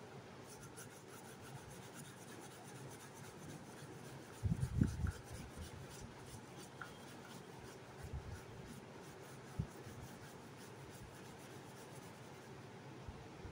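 Oil pastel rubbing on drawing paper in short, repeated strokes as a background is coloured in. A few low bumps sound over it, the loudest just under five seconds in.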